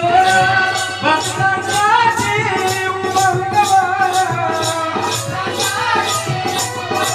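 Marathi folk dance music: a melody line over a steady beat, with a rattling percussion keeping about three strokes a second.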